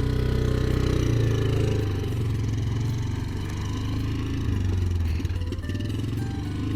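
Motor vehicle engine running steadily while driving, with some clattering and rattling.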